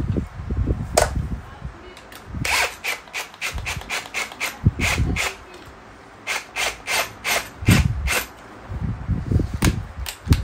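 Hose-clamp collars being tightened with a small hand tool and 7 mm socket: sharp clicks about four a second in two runs, among low handling knocks and rubbing.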